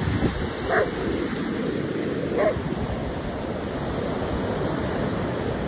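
Steady rush of ocean surf, with two short dog barks, one about a second in and another a little before halfway.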